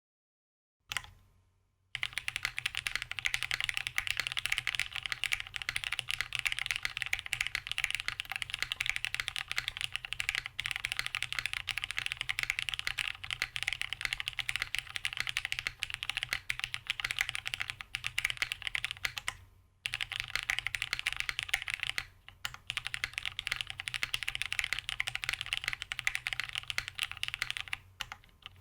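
Fast continuous typing on a plateless Cinque 55 custom mechanical keyboard with linear Cherry Hyperglide MX Black switches and GMK Mizu doubleshot ABS keycaps. Dense key clacks with a few short pauses. A low steady hum sits beneath.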